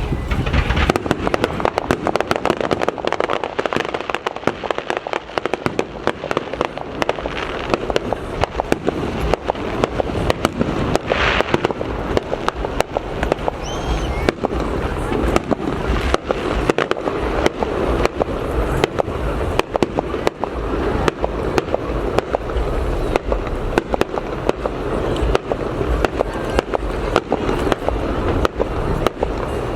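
Fireworks show: a continuous barrage of rapid aerial bangs and crackling, dozens of reports overlapping with no let-up.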